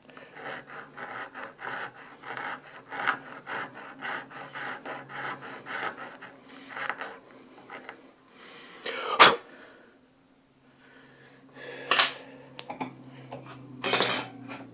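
Quick back-and-forth strokes of a hand file taking metal off the tip of a pistol sight, about three strokes a second for the first seven seconds. Then a loud knock about nine seconds in and two sharp metallic clinks near the end.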